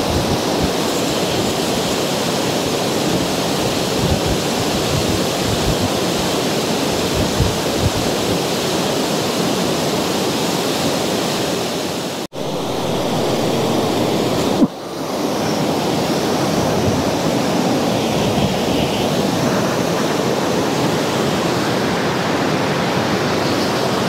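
Fast river water rushing steadily, a continuous roar with no distinct events. The sound briefly drops out twice, about twelve and fifteen seconds in.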